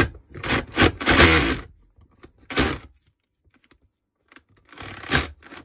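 Makita DHR242 cordless rotary hammer run in short trigger bursts, a clattering rattle four times with a pause of nearly two seconds before the last. It is being test-run to check whether its safety clutch slips.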